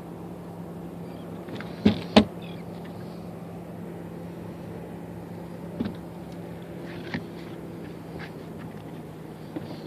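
Hinged storage hatch lids on the seats of a small fibreglass skiff being opened and closed: two sharp knocks about two seconds in, then lighter knocks later, over a steady low hum.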